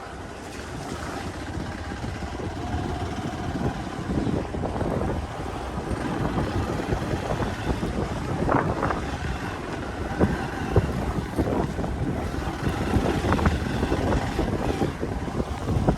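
Hero Xpulse 200 single-cylinder motorcycle running over a rough off-road track, with wind buffeting the microphone. Several short knocks come through in the second half.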